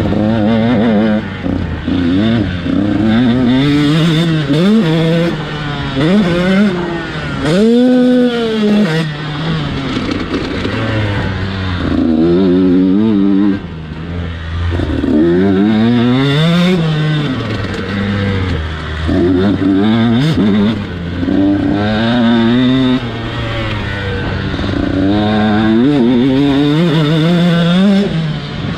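KTM SX 125 motocross bike's 125 cc single-cylinder two-stroke engine revving hard and dropping off, over and over: each burst of throttle climbs steeply in pitch, then the revs fall away as the rider shifts or rolls off. The biggest, longest rise and fall comes about eight seconds in.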